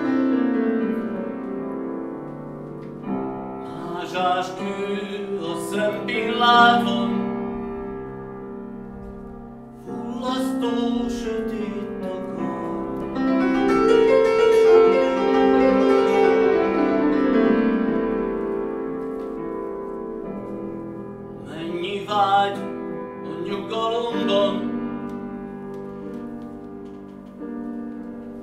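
Solo piano music, slow, in phrases that swell and fade.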